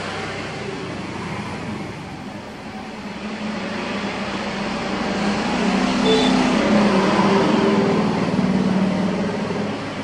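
Road traffic with a vehicle engine passing, swelling from about five seconds in and easing off near the end.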